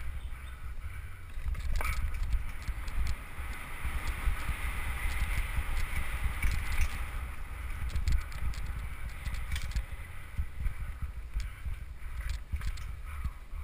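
Downhill mountain bike descending a dirt trail at speed: wind buffeting the helmet-mounted microphone, with the bike rattling and scattered clicks and knocks from the chain and frame over roots and bumps.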